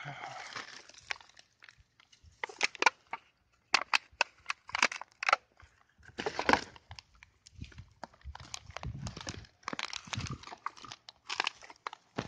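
Dry leaves, twigs and brush crackling and rustling in irregular bursts as someone pushes through the undergrowth on foot, with sharp snaps mixed in.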